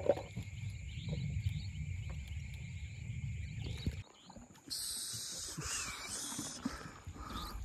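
Insect chorus: steady high-pitched buzzing and small chirps over a low rumble. About four seconds in, the sound cuts off briefly and comes back as a brighter, hissier chorus.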